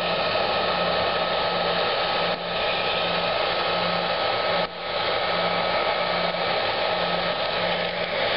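Hair dryer blowing steadily, warming vinyl decals on a vehicle's paint to soften the adhesive for peeling. Its airflow is a steady hiss with a thin, steady whine in it, and it dips briefly twice.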